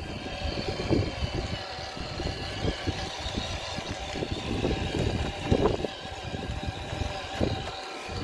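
Small electric motor whining steadily at several even pitches, over an uneven low rumble of wind on the microphone.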